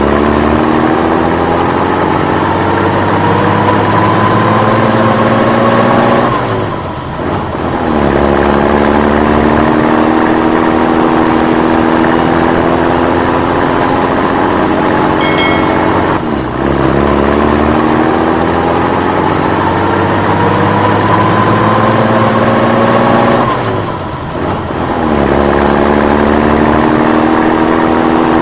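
Motor-vehicle engine sound effect, added in place of the toy's own sound: a steady engine note climbing slowly in pitch as if accelerating through a gear, dropping away, then starting over, in a repeating loop.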